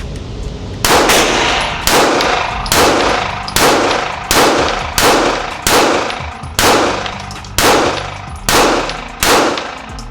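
Taurus handgun fired eleven times in a steady string, about one shot a second, each shot ringing briefly off the walls of an indoor range.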